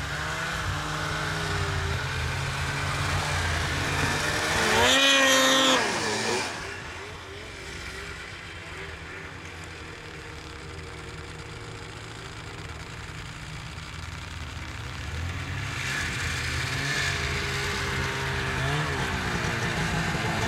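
Snowmobile engines running over snow. A loud, hard rising rev comes about five seconds in, then the sound drops away into the distance. Another machine grows steadily louder as it approaches, with a quick rev near the end.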